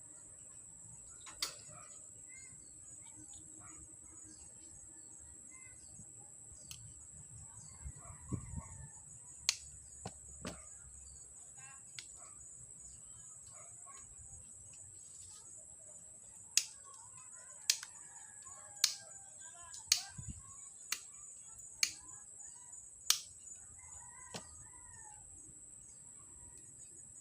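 Sharp clicks and taps of metal fan parts and tools being handled and fitted while the electric fan's motor shaft and spacers are worked on: a few scattered ones, then a run of about seven coming roughly once a second.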